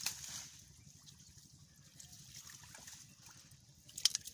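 Muddy water trickling and splashing as hands dig through mud in a shallow drained pond, with a short sharper splash at the start and a louder cluster of splashes near the end.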